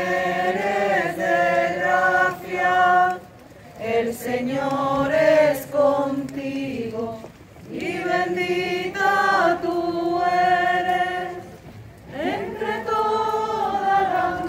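A group of people singing together in unison, walking in procession, in phrases of three to four seconds with short breaks between them.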